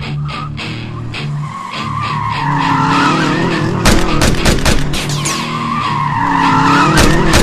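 Dubbed car sound effects: an engine revving and tyres squealing in two long wavering screeches, with a few sharp bangs about four seconds in.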